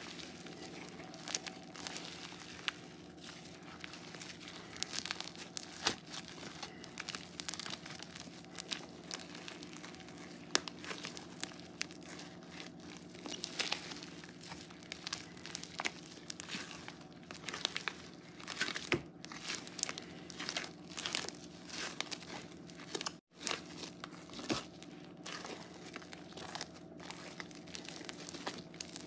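Crunchy foam-bead slime being kneaded and squeezed by hand: a dense, irregular run of small crackles and crunches as the foam beads are pressed and rubbed. A short drop to silence comes about three-quarters of the way through.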